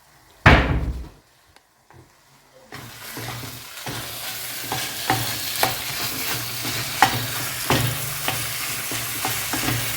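A short loud thump about half a second in, then, from about three seconds in, minced pork and beef with chopped carrot, onion and celery sizzling in a hot pan while a spoon stirs it, clicking against the pan every half second or so.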